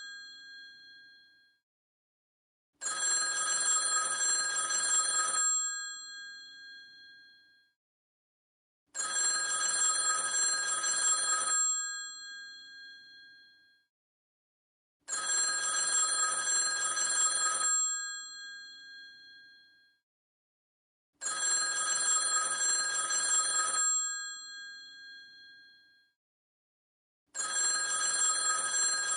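Old telephone's bell ringing in a regular cadence: five rings of about two and a half seconds each, roughly every six seconds, each ending with a short ringing decay and then silence.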